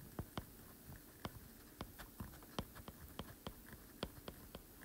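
Faint, quick, irregular clicks, several a second, of a stylus tip tapping on a tablet's glass screen while a word is hand-lettered.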